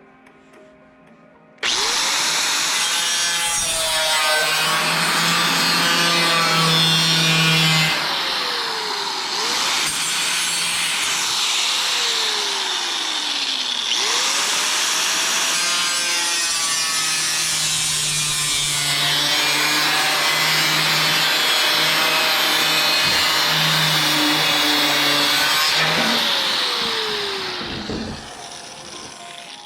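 Handheld electric power saw or cutter cutting sheet metal with a loud, hissy cutting noise. The motor spins up about two seconds in, winds down and restarts twice, and runs down near the end.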